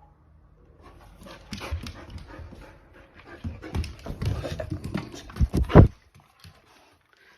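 Akita Inu dog panting in quick, uneven bursts, loudest just before it stops about six seconds in.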